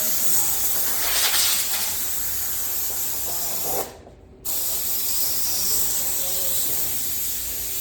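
Air hissing out of a blow nozzle, blowing dust off garage door hardware: a long blast, a short break about four seconds in, then a second blast that cuts off at the end.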